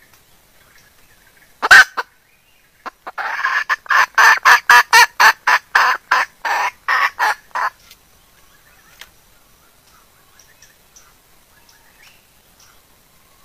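Female junglefowl cackling in heat, a hen's mating call that draws a cock. Two short loud calls, then about a second later a fast run of about fifteen clucks, some three a second, lasting around four and a half seconds.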